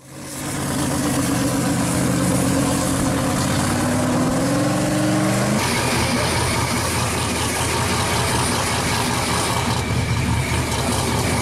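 Supercharged V8 of a 1969 Camaro Pro Charger street machine idling, loud and steady. Its pitch rises a little about four to five seconds in, and just before the middle the sound changes abruptly to a rougher, noisier idle.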